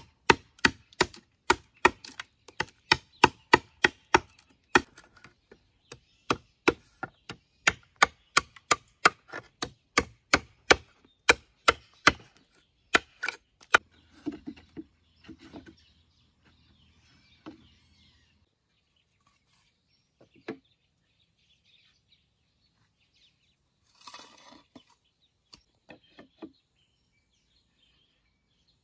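Bamboo being chopped with a blade: a fast, even run of sharp strikes, about three a second, that stops about halfway through, followed by a few scattered knocks.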